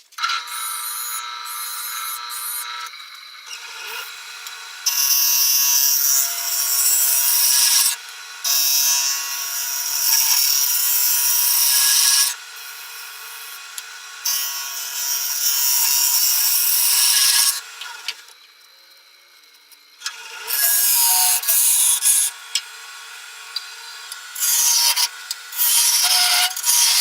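Wood lathe running with a steady motor hum while a tool is pressed against the spinning wooden bowl, making a loud scraping hiss in several passes of a few seconds each. There is a quieter lull about two-thirds of the way through.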